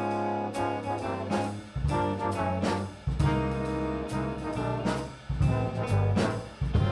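A high school jazz band playing a swing-style number, with trombones and trumpets over a steady bass and drum beat.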